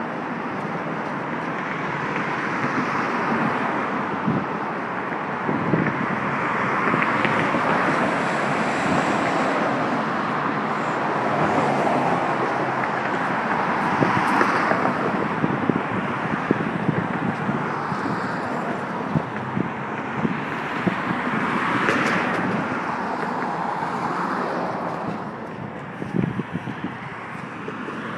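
Road traffic on a multi-lane street: cars passing one after another, each swelling and fading away, with wind on the microphone.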